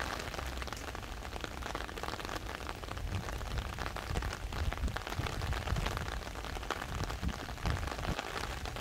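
Steady rain falling on a surface: a dense haze of small drop hits over a low, uneven rumble.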